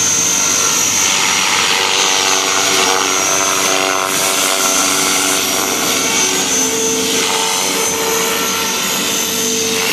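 Electric RC model helicopter (Devil X360 with an 1,800 kV brushless motor) flying overhead. Its rotors and motor make a steady, loud whine whose tones shift in pitch a few times as it manoeuvres.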